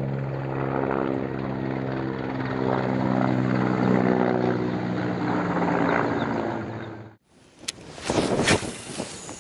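Propeller aircraft engine droning overhead: a loud, steady drone with a low hum that stops abruptly about seven seconds in.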